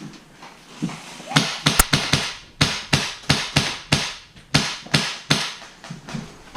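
A quick, uneven run of sharp, short knocks or cracks, about three a second, starting about a second in and stopping near the end.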